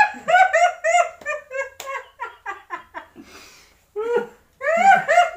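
A woman laughing in quick, high-pitched bursts of repeated syllables that trail off about three seconds in, then break out again loudly near the end.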